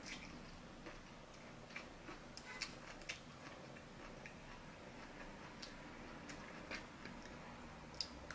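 Faint, irregular clicks of metal chopsticks tapping against each other and the takeout food containers while eating, about nine in all.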